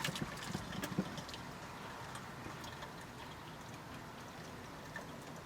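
Cooked cherry plum pulp being worked through a sieve: a few knocks and clicks in the first second or so, then faint juice dribbling through into the container below.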